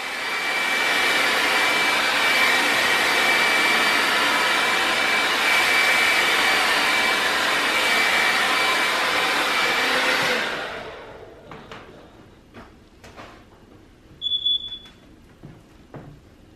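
Hand-held hair dryer running steadily, blowing out hair, with a faint high whine in its rush of air; it is switched off about ten seconds in and winds down. After that come light handling clicks and one short high tone.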